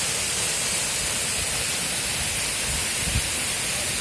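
Waterfall rushing with a steady hiss, with a brief low bump about three seconds in.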